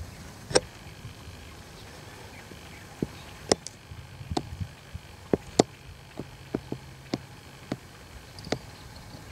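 Irregular sharp clicks and knocks, about fifteen in all, scattered unevenly over a quiet outdoor background.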